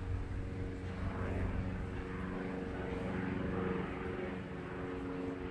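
A distant engine droning steadily, with a low hum that holds its pitch.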